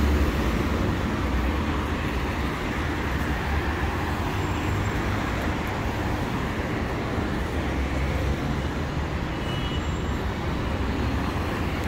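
Steady city road traffic: cars and vans passing through a busy intersection, with a continuous low rumble of engines and tyres.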